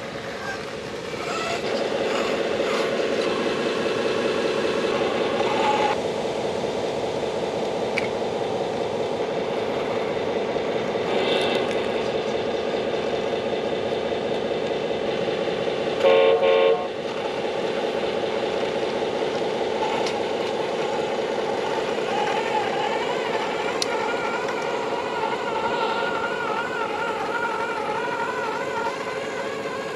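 Cross RC BC8 8x8 RC truck's electric drivetrain whining steadily as it crawls over rough ground under load from a towed trailer. A short, loud horn toot sounds a little past halfway.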